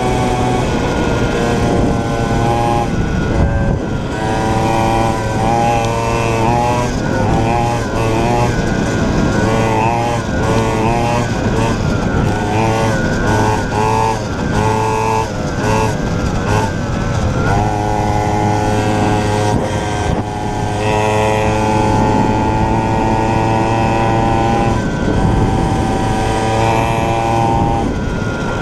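49cc two-stroke mini cross bike engine running under way, its pitch wavering quickly up and down with the throttle through the middle stretch, then holding a steady high note from about two-thirds of the way through.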